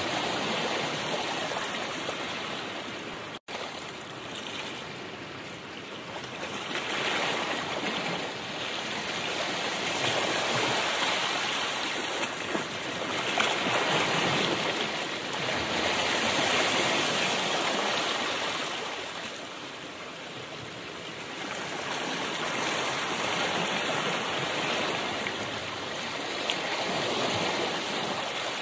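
A continuous rushing noise that swells and fades every several seconds, with a split-second dropout about three seconds in.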